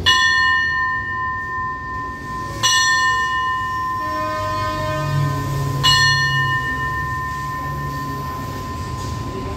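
Hanging railway station bell struck three times, about three seconds apart, each strike ringing on with a long, steady tone. At a Thai station this is the bell signalling the standing train's departure.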